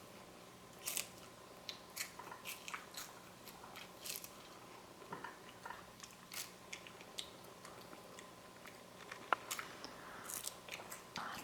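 A crispy seaweed snack (spicy prawn flavour) being bitten and chewed: faint, irregular crunches.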